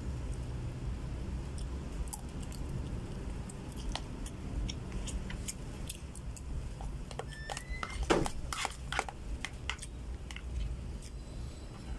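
A spoon clicking and scraping against a plastic food container as someone eats, the clicks coming thickest about six to ten seconds in, over a steady low hum.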